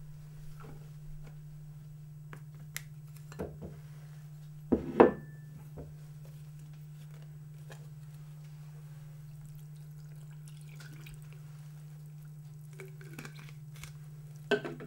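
Scattered light clinks and knocks of kitchen utensils and containers during bioplastic preparation, with one louder clatter about five seconds in and a few more knocks near the end, over a steady low hum.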